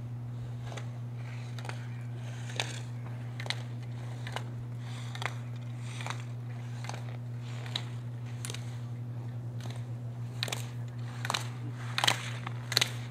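Slalom skis edging on hard-packed snow: a short scrape with each turn, about once a second, growing louder and closer together near the end. A steady low electrical hum runs underneath.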